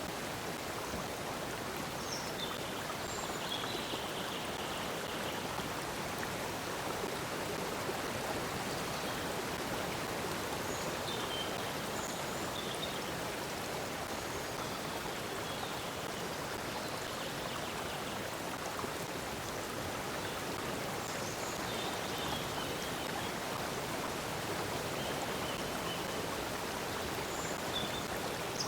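A stream of flowing water runs steadily. Faint, brief bird chirps are scattered over it.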